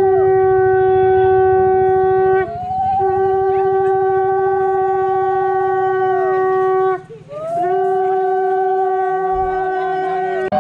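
Conch shell (shankha) blown in three long, steady held notes on one pitch, with short breaks between blasts. It is the conch sounded in the ritual welcome of the groom at a Bengali wedding.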